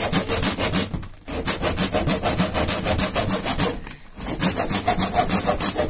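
Hand saw cutting an opening in the ceiling from the attic above, with fast, even back-and-forth strokes. The sawing pauses briefly twice, about a second in and about four seconds in.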